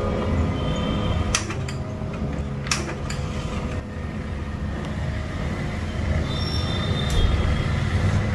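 HP LaserJet M1005 MFP laser printer running and feeding a page through with a steady mechanical hum, and a couple of sharp clicks in the first three seconds. It is printing a test page from its freshly refilled toner cartridge.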